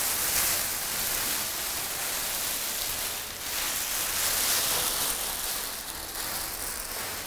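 Clear plastic bags being pulled off two tower speakers and bunched up in the hands, a continuous crinkling rustle.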